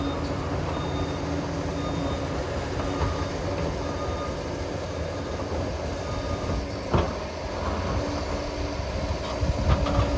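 Liebherr 746 crawler dozer working: its engine runs steadily under a low rumble, with metallic clanks from the tracks and blade. There is one sharp knock about seven seconds in and a few more clanks near the end.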